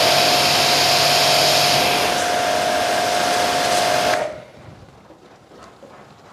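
High-pressure water jet from a Shakti S3 pressure washer's spray gun nozzle, a loud hiss with a steady whistle running through it, cutting off suddenly about four seconds in when the spray stops.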